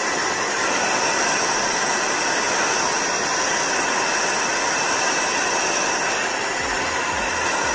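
Handheld hair dryer running steadily, blowing air over the hair as it is dried and styled, with a few low thumps near the end.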